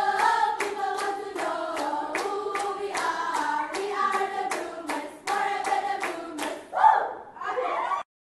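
A group of voices singing together over a steady beat of hand claps, about three claps a second. A short loud shout comes near the end, and then the sound cuts off abruptly.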